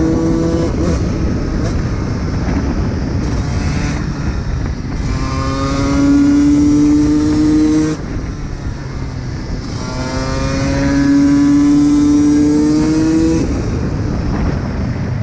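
125 cc two-stroke dirt bike engine accelerating hard twice. Each time the pitch climbs steadily for about three seconds, then drops off sharply when the throttle is closed, with rougher lower-rev running in between.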